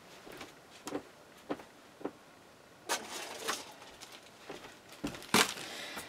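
A Tim Holtz Tiny Attacher stapler and its staple packs handled while loading staples: a few scattered clicks and short plastic rustles, the loudest a sharp click about five seconds in.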